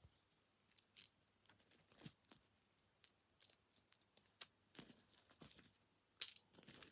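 Faint, scattered clicks and light rattles of beads and costume-jewellery pieces being picked through and sorted by hand, the loudest about six seconds in.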